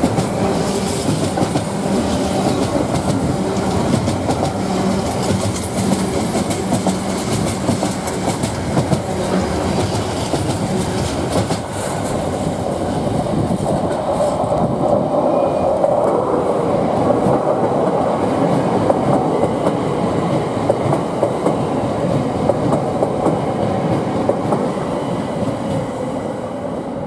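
Container freight train wagons rolling past close by, their wheels clicking over the rail joints. About halfway through, the clicking eases and a steadier, lower running sound takes over as a London Overground Class 378 electric train runs past alongside.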